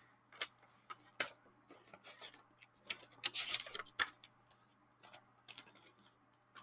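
Paper and plastic packaging being handled: scattered light taps and clicks, with a brief rustle a little past the middle.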